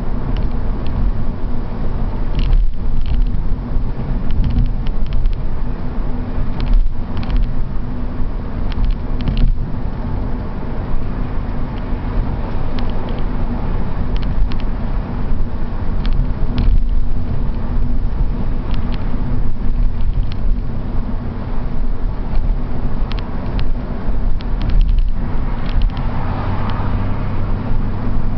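BMW 328 cruising at motorway speed, heard from inside the cabin: a steady engine drone over tyre and road rumble. A deeper hum joins near the end.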